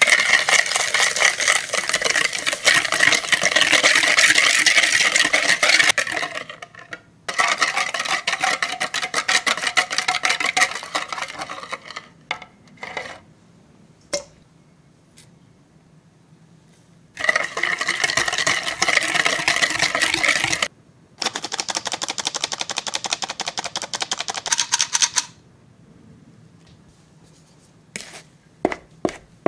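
Wire balloon whisk beating egg and sugar in a clear mixing bowl: rapid rattling and clicking of the wires against the bowl, in four bouts of a few seconds each with short pauses between. Near the end, a few separate taps as a wooden spatula cuts into flour in the bowl.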